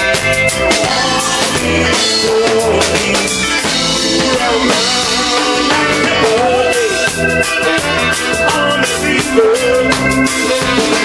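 Live band playing an instrumental passage, with drum kit and electric guitar.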